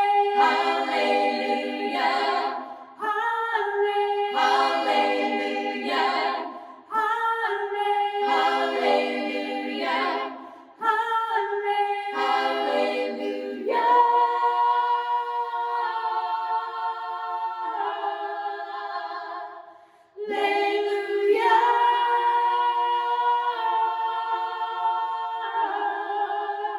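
Women's a cappella vocal group singing in close harmony: several short phrases with brief breaks, then two long held chords near the end.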